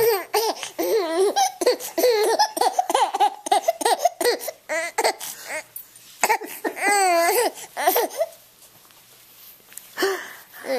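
Baby laughing while being tickled: a run of high-pitched giggles and wavering squeals that dies down about eight seconds in, with one more short laugh near the end.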